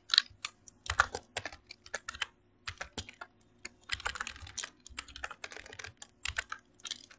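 Computer keyboard typing: short runs of quick keystrokes with brief pauses between them.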